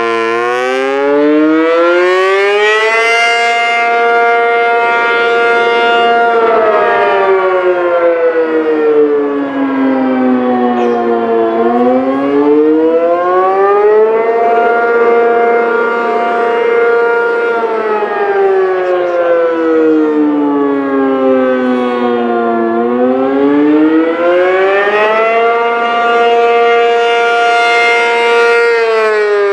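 ACA P-50 outdoor warning siren sounding the attack signal, a wail. Its pitch rises for about three seconds, holds at the top for a few seconds, then falls slowly, over and over about every eleven seconds.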